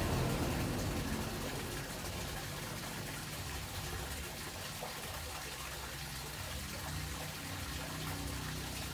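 Steady rush of running water from an aquarium's water circulation, an even hiss without rhythm. A low rumble fades away in the first second.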